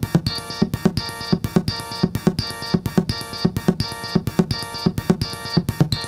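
Modular synthesizer patch played through a homemade Steiner-Parker voltage-controlled filter (Yusynth design), giving sharp, drum-like percussive hits with a short pitched ring, in a steady rhythm of about five hits a second with a brighter accent about twice a second.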